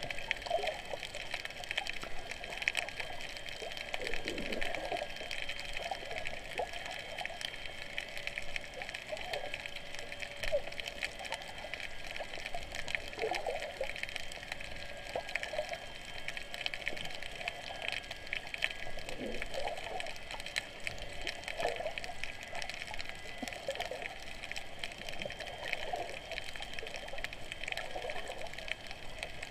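Underwater water noise heard through a submerged camera: muffled sloshing and gurgling with many small clicks and crackles throughout.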